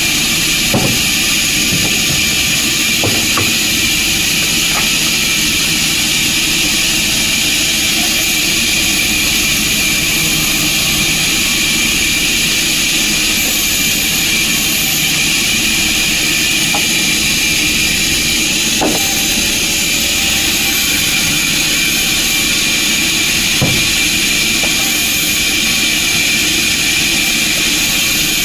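Sawmill machinery running steadily: a loud, even mechanical noise with a high-pitched hiss and a few faint knocks.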